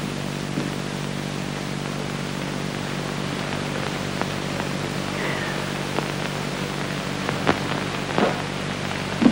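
Steady hiss and low hum of an old film soundtrack, with a few scattered clicks and crackles, most of them near the end.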